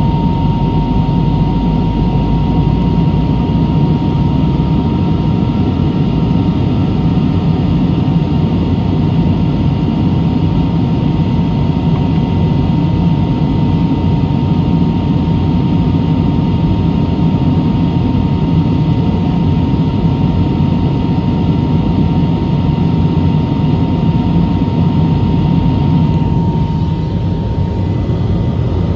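Steady airliner cabin noise: jet engines running and air rushing past the fuselage, a deep rumble with a thin steady whine just under 1 kHz. It eases slightly near the end.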